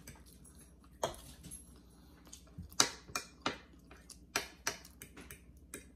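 Metal forks clicking and scraping against food platters: a dozen or so sharp, irregular clicks.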